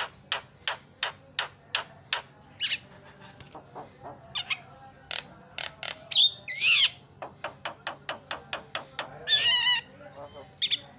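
Javan myna calling: a quick run of short, sharp repeated notes, about three a second, breaking into varied whistles, squawks and chattering trills, with loud warbling calls about six seconds in and again about nine seconds in.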